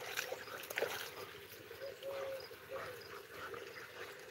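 A German shorthaired pointer puppy wading through shallow muddy water and climbing out onto the bank, with light splashing and dripping.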